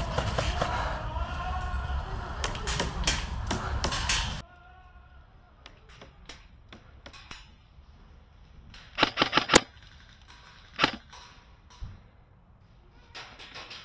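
Electric airsoft rifle (Cyma Platinum AEG) firing, picked up close by the gun-mounted scope camera: a few scattered shots, then a quick string of about five a little past halfway and a single shot a second or so later. The first few seconds hold loud rustling noise of movement that cuts off suddenly.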